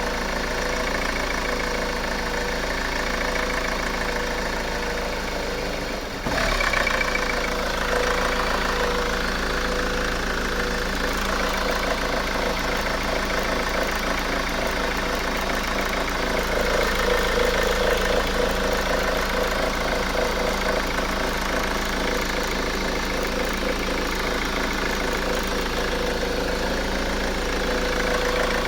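Honda Accord 2.2 i-CTDi four-cylinder turbodiesel engine idling roughly, the rough idle being the fault under inspection. About six seconds in there is a brief break, after which it runs a little louder.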